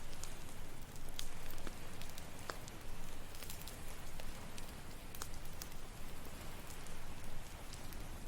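Campfire crackling, with frequent sharp pops scattered through it, over a steady wash of ocean surf.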